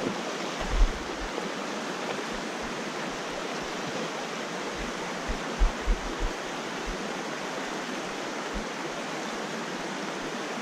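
Small mountain creek rushing over rocks in shallow riffles, a steady, even rush of water. A few brief low thumps come about a second in and around the middle.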